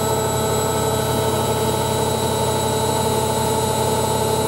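Hoover Ecologic 1300 washing machine spinning at speed, around 800 to 1,000 rpm: a loud, steady motor whine with several held tones over the rush of the turning drum.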